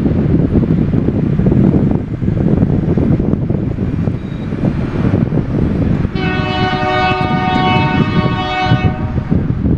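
Loram RG319 rail grinder train rumbling by on the rails, with wind on the microphone. About six seconds in its air horn sounds one held chord for nearly three seconds, then cuts off.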